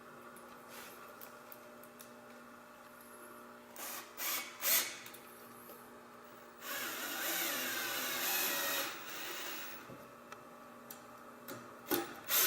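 Power drill driving a screw to fasten a mini lock plate to a wooden stair post, running for about two seconds in the middle, with a few short clicks and knocks before it and near the end.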